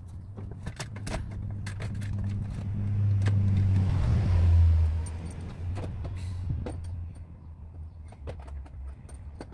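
Jeep Cherokee diesel engine starting just after its glow plugs were replaced. It catches and rises to a flare of revs about four to five seconds in, then settles to a steadier idle, with light clicks and rattles over it. It is expected to run a little rough from WD-40 the mechanic thinks got into the cylinder.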